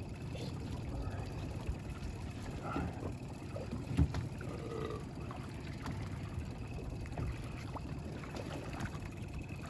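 Steady low rumble and water noise of a fishing boat trolling on open water, with one sharp knock about four seconds in.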